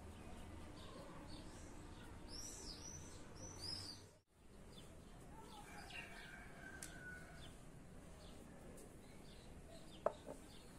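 Small birds chirping over and over, faint, with a run of higher arching calls before a brief break in the sound. Near the end comes a single short, sharp knock.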